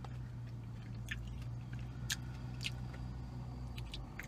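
Close-up chewing of a salad, with a few sharp clicks from a metal fork against a plastic container. Under it runs a steady low hum that stops near the end.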